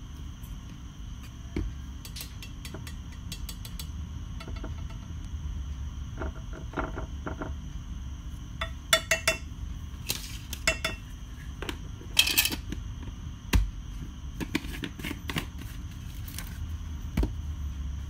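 A metal spoon clinking and tapping against a ceramic baking dish, in scattered light knocks and short quick clusters, over a steady low hum.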